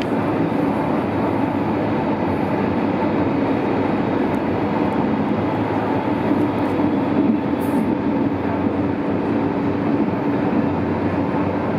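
Berlin U-Bahn H-series train running, heard from inside the car: a steady rumble of wheels on rails with a constant low hum.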